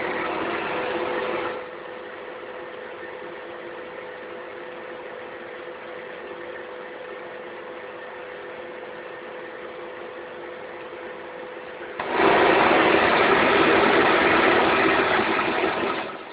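Vacuum cleaner running with a steady motor hum, louder for the first second and a half, quieter through the middle, and loud again for about four seconds near the end.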